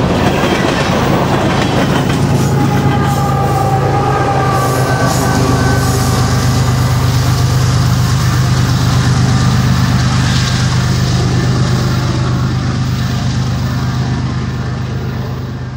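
Freight train of hopper cars rolling past, wheels clattering over the rails, with a steady low drone that fades near the end as the train draws away.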